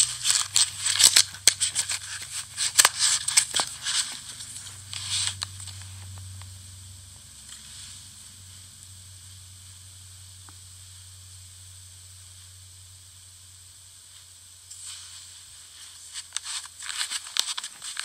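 Handling noise of a folding knife and its nylon sheath: fabric rustling with small metal clicks and scrapes for the first five seconds or so, then only a low hum, and the rustling and clicking start again about three seconds before the end.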